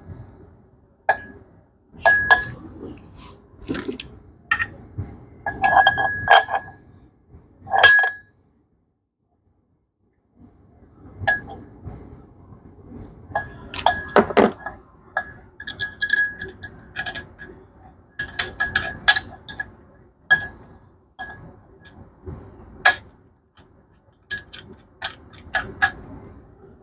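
Steel engine parts clinking and ringing as they are handled and fitted: many irregular light strikes that each ring at the same few bright pitches, with a break of about two seconds of dead silence about a third of the way in.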